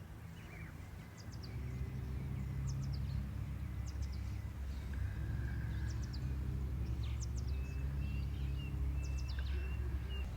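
Small birds chirping in short high calls over a steady low rumble that swells about a second in and holds.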